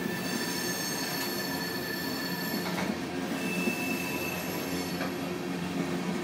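Open-top hopper cars of a Norfolk Southern unit train rolling past, with a steady rumble of wheels on rail. Thin high wheel squeals ride over it, one held through the first half and a higher one briefly just past the middle.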